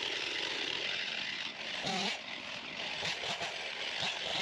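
An engine running steadily, with a short wavering pitched sound about two seconds in.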